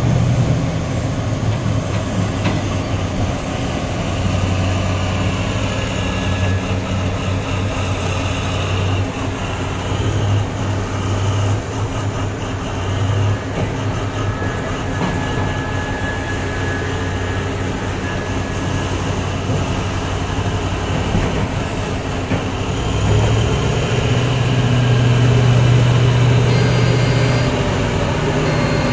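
Large Komatsu hydraulic mining excavator working beside a loaded dump truck: a steady deep diesel engine drone under a continuous rattling, clattering noise, the engine note swelling louder about three-quarters of the way through.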